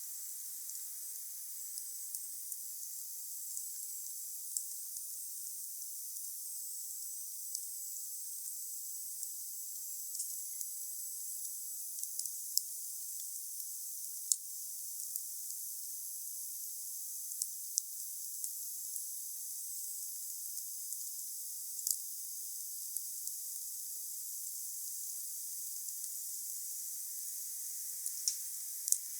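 Wood fire burning with a steady high hiss and scattered sharp crackles and pops, a few louder ones about halfway and near the end.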